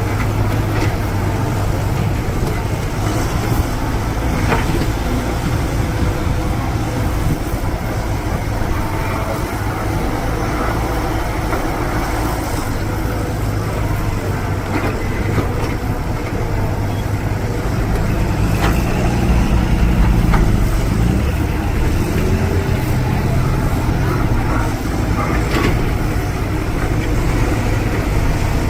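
Heavy diesel earth-moving machinery running with a steady low drone, with occasional sharp knocks; the engine note swells louder for a couple of seconds about two-thirds of the way through.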